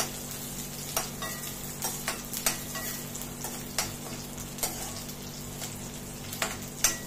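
Coconut, cashews and raisins frying in oil and ghee in a kadai, a steady sizzle, with a spatula stirring and clicking against the pan at irregular intervals, about once a second.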